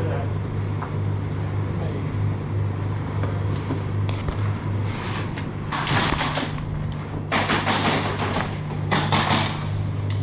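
Airsoft electric guns firing full-auto bursts: several roughly one-second bursts from about six seconds in. A steady low hum runs underneath.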